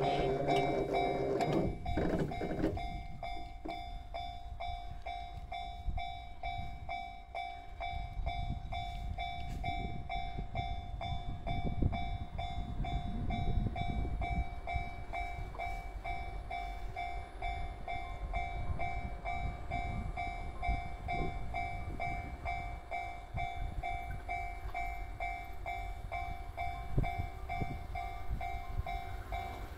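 Japanese railway level-crossing warning bell ringing in a fast, even, repeating beat, warning of an approaching train, over a low rumble.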